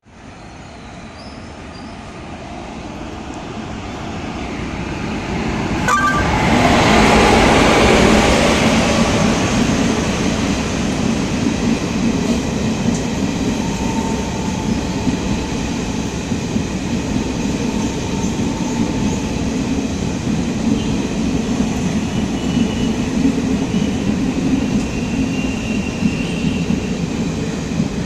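Jan Shatabdi Express train approaching along the platform, growing steadily louder for about six seconds as the locomotive reaches the microphone. Its coaches then roll past with a steady rumble of wheels on rail and a run of clicks.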